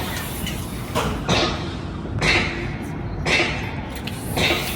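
Rhythmic rasping strokes, about one a second, over a steady low rumble.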